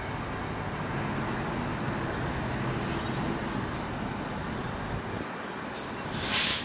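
An X'trapolis electric train standing at a platform with a steady hum. Near the end come two sharp hisses of air, a short one and then a longer, louder one.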